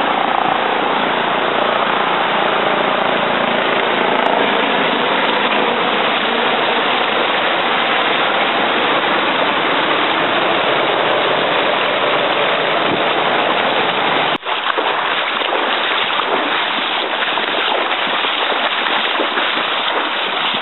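Floodwater rushing and splashing steadily as vehicles and a rescue boat push through a flooded street. About two-thirds of the way through the sound cuts abruptly to choppier sloshing of people wading through floodwater.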